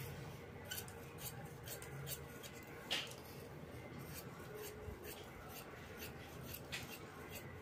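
Scissors snipping through blouse fabric, a run of faint, crisp snips with one louder snip about three seconds in.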